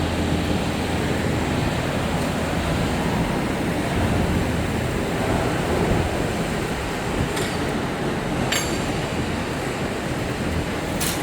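Steady din of CNC woodworking machinery running on a workshop floor, with a low hum under a broad rush of noise and a few sharp clicks in the second half.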